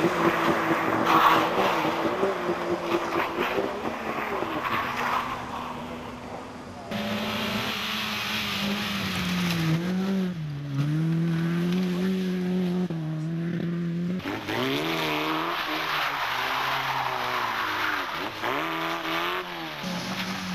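Rally car engines running hard and revving, their pitch rising and falling, in several short clips cut together; the sound changes abruptly about 7 and 14 seconds in.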